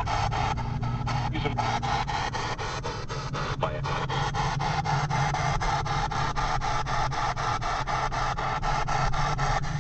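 P-SB7 spirit box sweeping the FM/AM band: radio static chopped into short bursts about five times a second. A steady low rumble of the moving car runs underneath.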